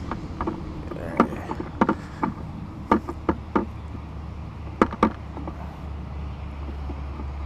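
A distant engine running with a low steady hum, under scattered light clicks and taps.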